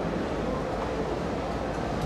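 Steady, low rumbling ambient noise of a cattle shed, with no distinct events standing out.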